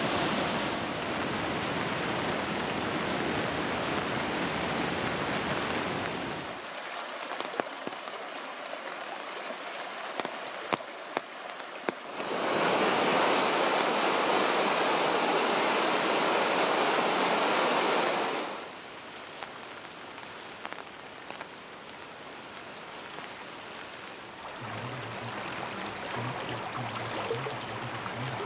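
Rushing floodwater heard in a run of separate clips: a swollen river in high flow, then the loudest stretch, about six seconds in the middle, where a creek pours out of a large corrugated-metal culvert, then shallower overflow water running in a roadside flood channel with a low steady hum under it.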